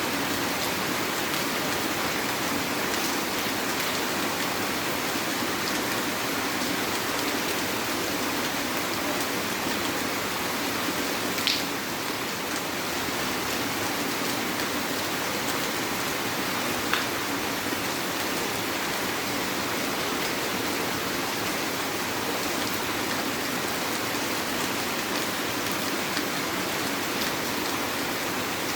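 Heavy rain falling steadily, an even hiss of drops, with two sharper single ticks of drops striking something close, a little before halfway and again a few seconds later.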